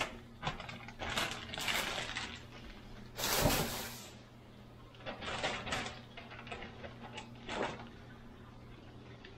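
Clear plastic zip-top bag of breadcrumbs rustling and crinkling as it is shaken and handled to coat fish fillets, in irregular bursts with a louder one about three and a half seconds in. A low steady hum runs underneath.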